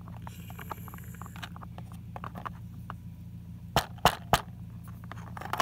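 Small plastic toy figures handled on a hard surface, tapping and clicking faintly, with three sharp taps in quick succession about four seconds in, over a steady low hum.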